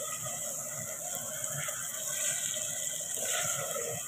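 Bottle gourd and onion-tomato masala sizzling in an aluminium pot as a spatula stirs it, a steady hiss with light scraping of the spatula against the pot.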